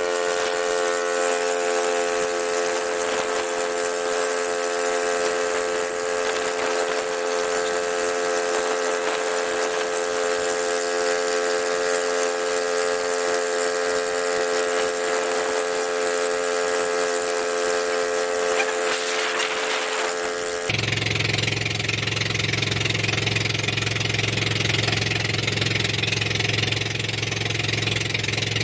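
An engine running at a steady speed with a constant pitch. About 21 seconds in it cuts abruptly to a deeper, steady engine hum.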